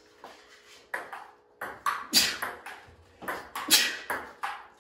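Table tennis rally: a ping-pong ball clicking back and forth off the paddles and the table, about two hits a second, starting about a second in.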